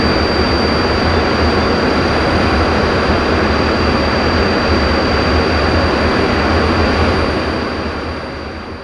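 BAC Jet Provost's Viper turbojet heard from the cockpit in flight: a steady rush of engine and air noise with a constant high whine and a low rumble. It fades out over the last two seconds.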